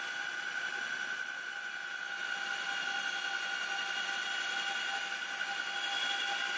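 Cockpit noise of a CH-47 Chinook helicopter in flight, its twin turboshaft engines and drive train giving a steady whine with several high pitches over a constant rush.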